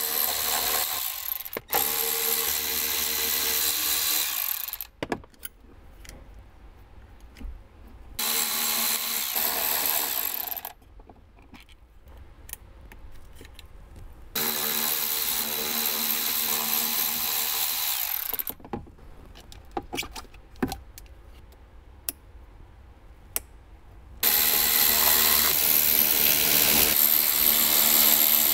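Cordless power screwdriver fitted with a T10 Torx bit driving the screws that hold a speaker housing in place: the motor whines in bursts of a few seconds, stopping and starting again several times, with clicks and knocks of handling between.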